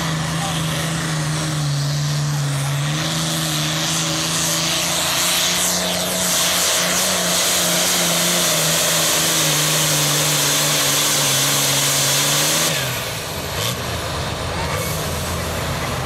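Turbocharged International 966 pulling tractor's diesel engine running at full power under load, its pitch wavering slightly. About thirteen seconds in it drops off sharply to a lower, quieter running speed as the pull ends.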